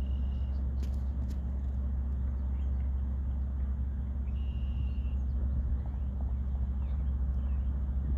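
Vehicle engine idling with a steady low hum. A short high steady tone comes twice, near the start and about halfway through.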